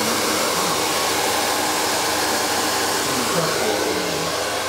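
Handheld hair dryer running steadily: a loud, even rush of blown air.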